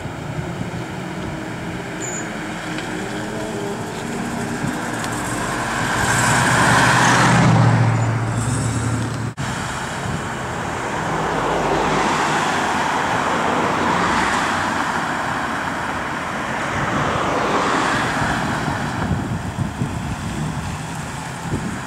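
A stream of cars passing close by one after another, classic Jensens among them, each swelling and fading with engine and tyre noise. The loudest pass, with a deep engine note, comes about seven seconds in. The sound cuts out for an instant a couple of seconds later.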